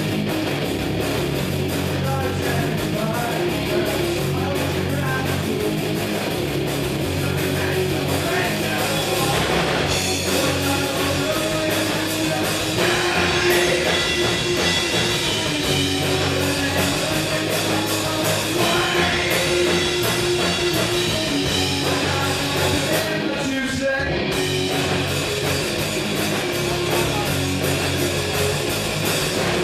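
A live three-piece rock band, with distorted electric guitar, electric bass and drum kit, plays hard rock with a short break about three-quarters of the way through.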